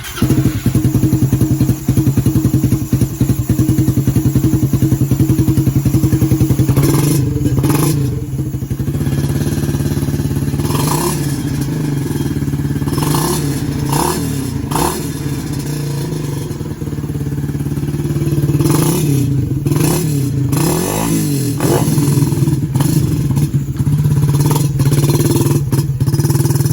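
Suzuki Raider R150 Fi single-cylinder four-stroke engine running through an aftermarket stainless canister exhaust with a Vmax elbow, idling steadily and then revved in short throttle blips several times before settling back. The owner calls the exhaust note crispy.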